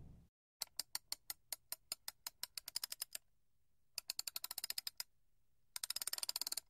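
A run of sharp clicks that come closer and closer together over about three seconds. After a pause there are two fast rattling runs of clicks, each about a second long, like typewriter keys.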